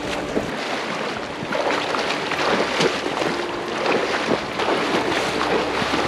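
Mountain creek water rushing steadily, with many small splashes throughout.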